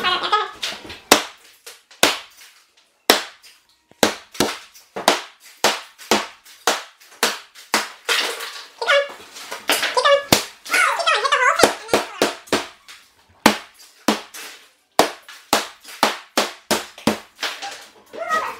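Hammer blows on a tiled bathroom wall during demolition: sharp knocks in an irregular series, about two or three a second, with voices in the middle.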